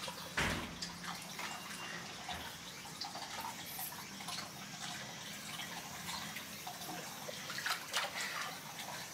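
Water dripping and lapping in a round wooden outdoor bathtub as a person steps into it, with a single sharp knock about half a second in and louder splashes near the end as the leg goes into the water.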